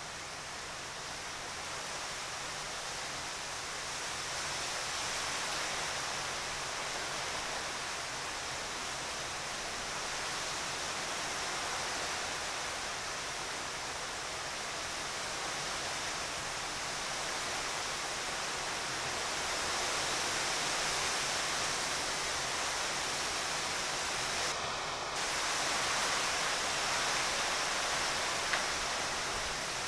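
Steady, even hiss of outdoor background noise with no distinct events.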